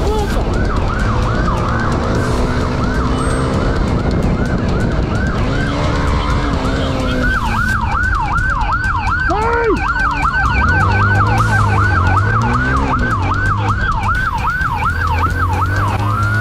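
Police siren in a fast yelp, its pitch sweeping up and down about three times a second and quickening about seven seconds in. Under it runs a loud, steady low rumble of road and engine noise.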